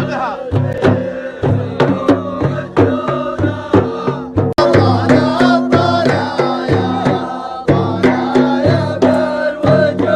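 Music with a steady hand-drum beat under a wavering melodic line, cutting out for an instant about four and a half seconds in.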